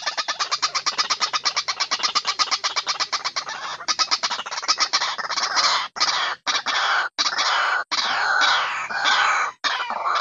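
White-breasted waterhen lure call: a fast, even run of harsh notes, about ten a second, for the first four seconds, then louder, more varied calls with falling notes, broken by several abrupt short gaps.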